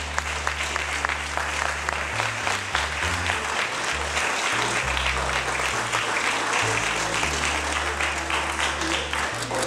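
Applause from a gathering of people, a dense patter of many hands clapping without letup, over music with low bass notes that change every second or so.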